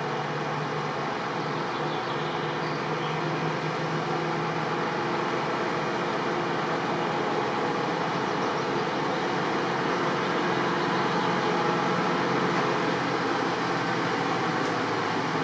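A 0-6-0 diesel-electric shunting locomotive's engine running steadily as the locomotive slowly approaches, growing a little louder.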